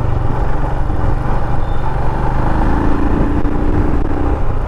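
Motorcycle engine running steadily under way, with wind and road noise rushing over the microphone.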